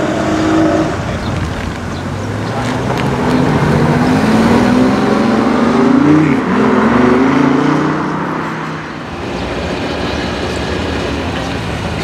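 BMW i8's turbocharged three-cylinder petrol engine accelerating away as the car passes close by. The revs climb in a few short rising steps, loudest as it goes past, then fall away.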